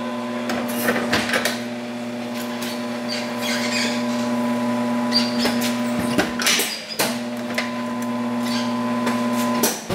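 A steady electric motor hum that cuts out about six seconds in and starts again a second later, with scattered metallic clanks and short hisses of air over it.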